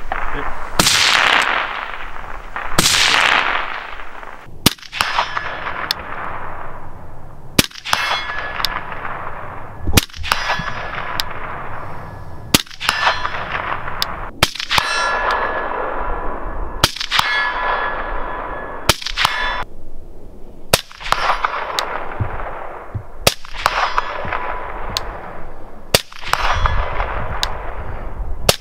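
Suppressed Mk12 SPR rifle (5.56 mm) fired over and over, about every two seconds, each crack followed a moment later by a steel target ringing and slowly fading.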